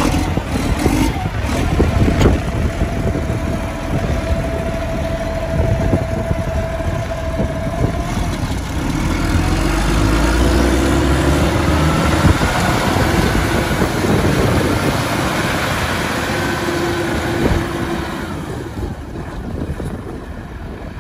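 Belarus 1523.3 tractor's diesel engine running after starting, as the tractor drives down off a trailer. A steady whine sits over it for the first several seconds; about halfway through the engine note swells, then eases toward the end.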